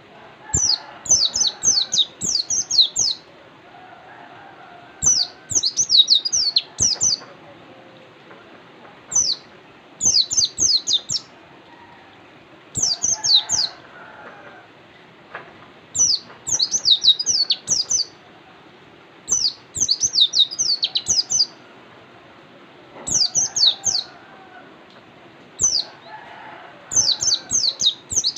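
White-eye (pleci) singing in repeated bursts of rapid, high, falling chirps, a new burst every two to four seconds.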